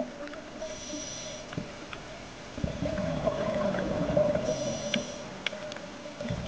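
Underwater ambience sound effect: a steady hum with faint clicks, joined by deeper rumbling about two and a half seconds in.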